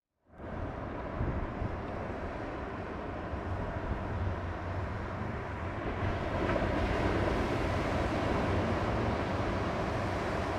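Steady rumble of offshore wind buffeting the microphone, with breaking surf under it. It comes in after a brief dropout at the start.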